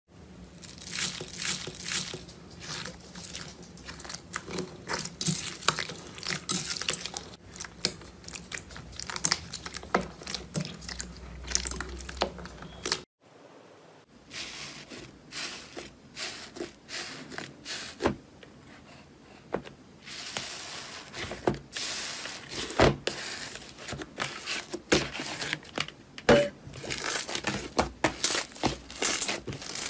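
Slime being squeezed, stretched and poked by hand, giving dense runs of sharp clicks and pops. Everything stops abruptly about 13 seconds in, and a second stretch of clicking and popping starts a second later.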